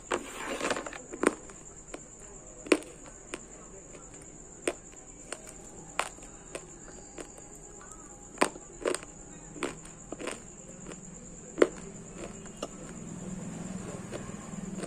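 Close-miked crunching and chewing of pieces of multani mitti (Fuller's earth clay) in the mouth: sharp, irregular crunches about every second, over a faint steady high-pitched whine.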